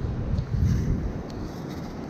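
Wind buffeting the microphone, gusting hardest in the first second and then easing, while a long-handled stainless steel sand scoop is pushed into wet beach sand to dig a metal detector target.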